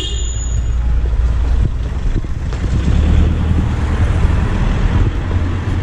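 Street ambience: steady low wind rumble on the microphone mixed with car traffic going by.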